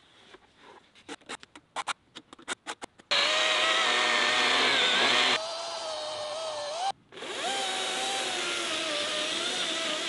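A run of sharp clicks, then a chainsaw starting suddenly about three seconds in and running under load with a steady whine that wavers in pitch as it cuts into an old maple trunk. It stops briefly about seven seconds in, then runs again.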